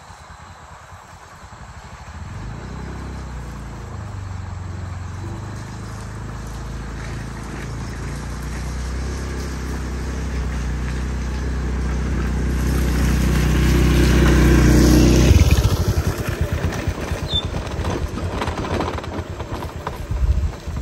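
Motorbike engine approaching, growing steadily louder, then cut off abruptly about three-quarters of the way through. After it, an uneven rustling noise.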